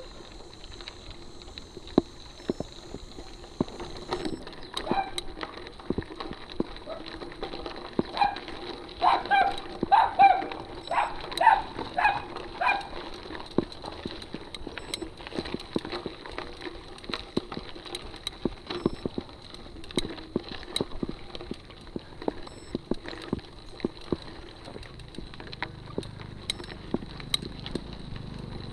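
Mountain bike rattling and clicking over a rough dirt and gravel road, a steady stream of sharp knocks. About eight to thirteen seconds in, a run of short, loud calls rises above the rattle, about two a second.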